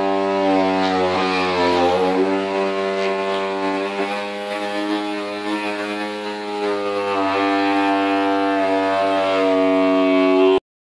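BTB handheld glass-removal power cutter running steadily as its blade cuts through a wide urethane adhesive bead, a steady pitched whine that dips briefly in pitch about a second in and again around seven seconds in. It cuts off suddenly near the end.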